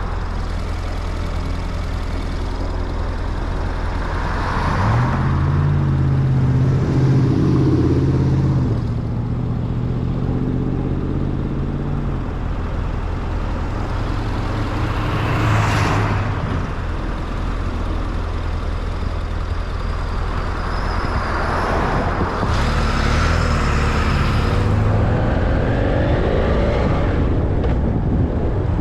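A vehicle driving on a highway with steady engine and road noise; the engine note rises and grows louder about five seconds in as it accelerates, and a few louder swooshes of passing traffic come and go.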